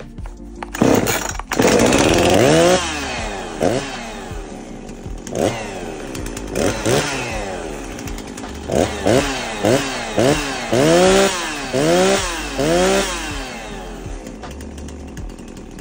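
Husqvarna 340 two-stroke chainsaw engine running and being revved over and over: about a dozen quick rises in pitch with drops back in between, falling back to a lower steady idle near the end.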